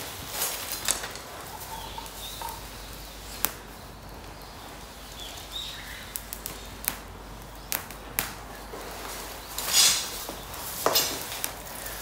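Small kindling fire of damp thin twigs crackling with sharp, scattered pops, while twigs are handled and laid on it. Faint bird chirps now and then.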